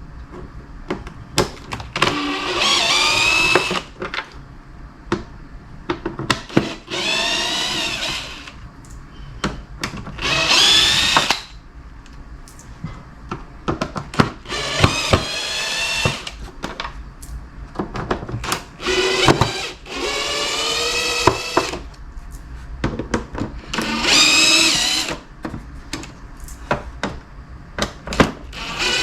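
Power drill-driver backing out Phillips screws, its motor whining and climbing in pitch in about seven short runs of one to three seconds each. Light clicks and rattles of screws and parts come between the runs.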